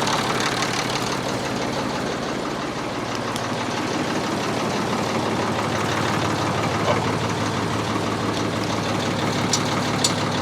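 Ford 4000 tractor engine running steadily, its note shifting slightly about three seconds in.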